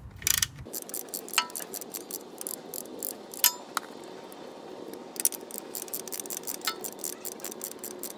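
Hand ratchet with a 6-point socket clicking in a quick, even run of ticks as it backs out a loosened bolt on the transmission's shift-linkage bracket. A few sharper metallic clinks come through among the ticks.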